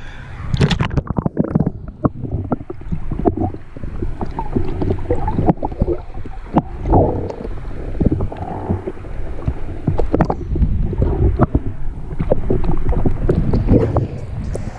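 Sea water sloshing around a camera held at and below the surface in shallow water, heard muffled through the submerged microphone, with many short clicks and knocks scattered throughout.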